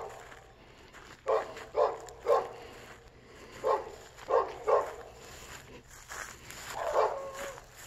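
A dog barking repeatedly in groups of two or three sharp barks, about seven in all, with one longer, drawn-out call near the end.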